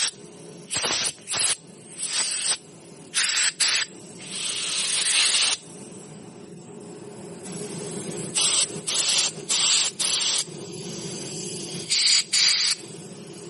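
Aerosol carburetor cleaner sprayed in about ten short hissing bursts, with one longer spray about four seconds in.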